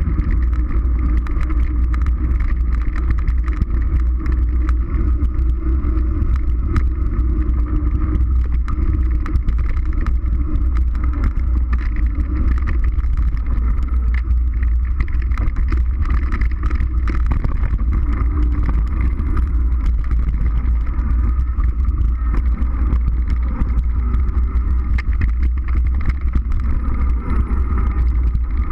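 Mountain bike ride noise: steady wind rush on the camera microphone with tyres rolling over a dirt trail, and frequent small knocks and rattles as the bike goes over bumps.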